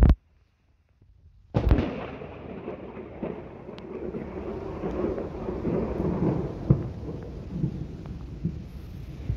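Thunder: a loud burst and a second of silence, then a sudden clap about a second and a half in that rolls on as a long, uneven rumble.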